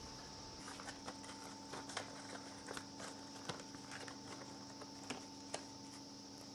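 Irregular light clicks and taps of hand work on a motorcycle handlebar, picking and scraping at the glue left under the stock rubber grip, over a steady faint hum.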